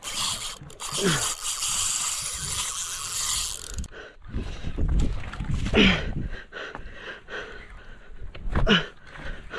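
Fishing reel's drag ratcheting as a hooked giant trevally pulls line off: a dense high-pitched buzz for about four seconds, then breaking into scattered clicks.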